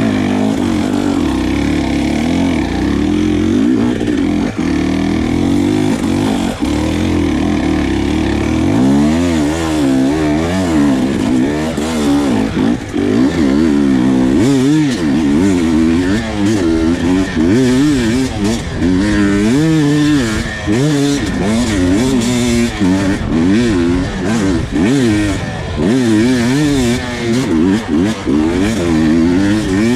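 Husqvarna TE300 single-cylinder two-stroke dirt bike engine holding a steady pitch. From about nine seconds in it is revved up and down in quick, repeated throttle blips, with scattered knocks.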